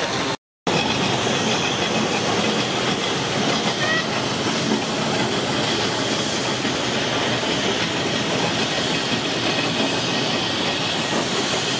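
Steam traction engine running as it drives slowly, a steady hiss with mechanical running noise. The sound drops out for a split second just after the start.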